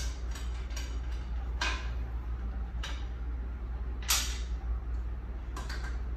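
Hands loosening wing nuts and handling plastic hose and valve fittings on a ventilator's bellows canister: about five short creaks and clunks, the loudest about four seconds in, over a steady low hum.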